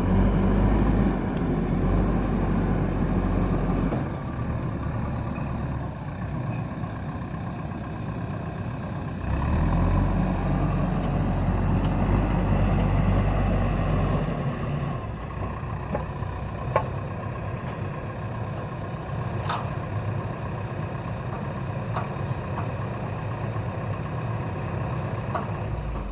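Diesel engine of a JCB backhoe loader running, louder at the start and again for about five seconds in the middle, then settling lower. A few sharp clicks or knocks come in the second half.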